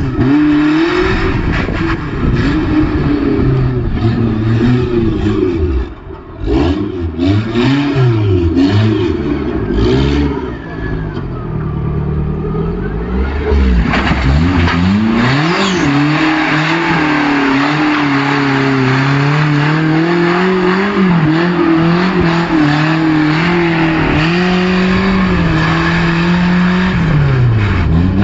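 Off-road vehicle's engine revving hard, its pitch rising and falling again and again, with a few knocks about six to ten seconds in. Through the second half the revs are held fairly steady and high.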